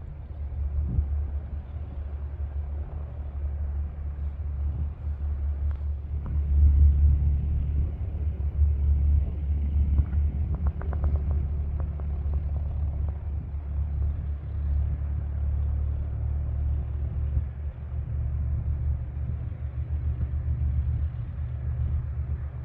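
Distant Cessna 170B departing, its six-cylinder engine at takeoff power heard as a steady low rumble that swells a few seconds in.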